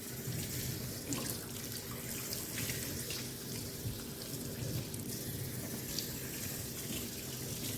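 Water running steadily from a sink faucet into the sink, switched on abruptly at the start.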